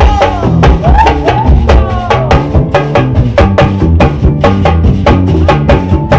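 A swingueira (pagode baiano) band playing live: a dense, fast pattern of percussion strikes over a heavy bass line, with sliding melodic notes above.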